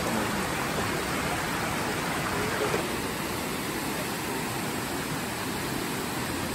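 Steady rushing of a waterfall and stream, an even hiss of falling water.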